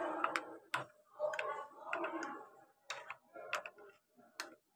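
A spoon stirring milk in a glass, clinking against the side in irregular sharp clicks about twice a second, with a soft swish of liquid between.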